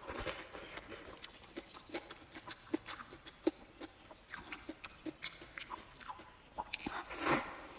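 Close-up mouth sounds of a person eating spicy stir-fried rice noodles: chewing and lip-smacking as a string of small wet clicks, then a longer slurp of noodles near the end.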